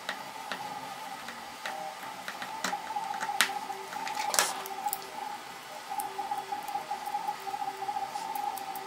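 Small clicks and ticks of a screwdriver turning small screws into 3D-printed plastic parts, and of the plastic pieces being handled, with a couple of sharper clicks near the middle. A faint steady hum runs underneath.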